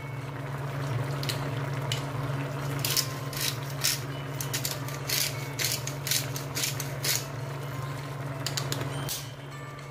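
Hand-twisted pepper mill grinding pepper: a run of irregular crunching, ratcheting clicks that starts about a second in and stops near the end, over a steady low hum.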